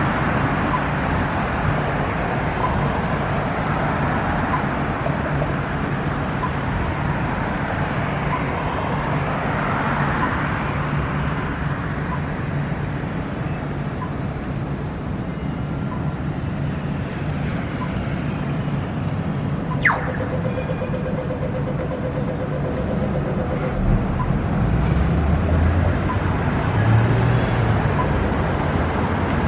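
Steady road traffic noise, with a deeper rumble of a vehicle passing close over the last few seconds. A single sharp click comes about two-thirds of the way through.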